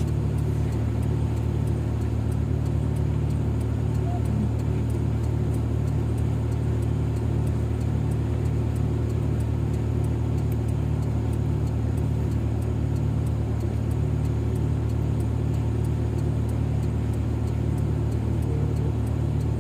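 An engine running steadily: a constant low drone with an even level.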